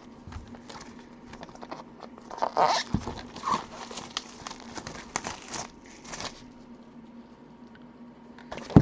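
Plastic shrink-wrap being torn and pulled off a sealed trading-card box, crinkling and crackling in irregular bursts, loudest about two and a half and five seconds in. A sharp click near the end.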